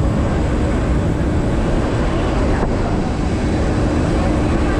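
Steady airport ramp noise beside a parked airliner: a constant mechanical hum with a thin high whine over a broad rushing noise, unchanging throughout.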